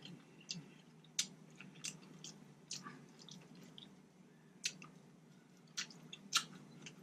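Close-miked chewing of seafood-boil food, with about a dozen short, faint mouth clicks and smacks spread through it.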